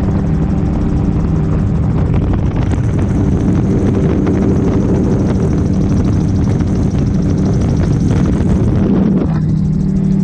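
Gyrocopter engine and propeller running steadily in flight, with a steady low drone and wind rushing over the microphone. The wind noise is heavier through the middle and drops away sharply near the end, leaving the steady engine drone.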